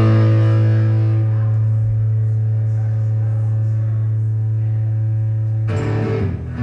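Electric guitar through an amplifier: one low chord left ringing and slowly fading for over five seconds, then strumming starts about five and a half seconds in.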